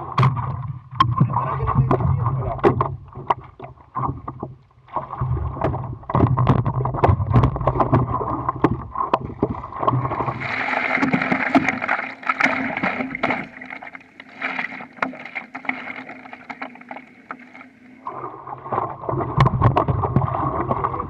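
Water sloshing and splashing against a stand-up paddleboard, close to the board, with the splash of paddle strokes coming unevenly throughout.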